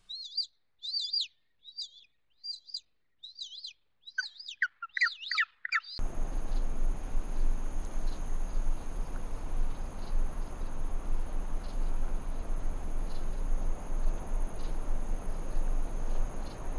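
Short, high bird chirps repeat with quiet gaps between them. About six seconds in they give way to a louder, steady rushing noise with a constant high insect drone and a few faint ticks: a dry-bush nature ambience.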